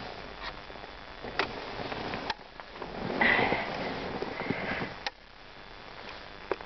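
Rustling and handling noise with a few light clicks and knocks as a hand-held camera is moved through a car's interior. A louder rustle swells in the middle and stops abruptly about five seconds in.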